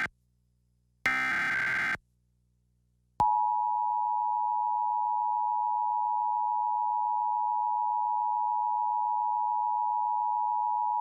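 Emergency Alert System test signals: the last of three SAME header data bursts, a one-second buzzy digital warble, then after about a second of silence the EAS two-tone attention signal, a steady dual-pitched tone (853 and 960 Hz) held for about eight seconds.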